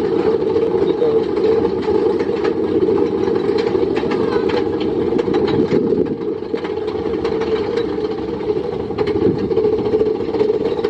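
Big Thunder Mountain Railroad's mine-train roller coaster cars running along the track: a steady, loud low rumble with scattered clicks and rattles from the wheels.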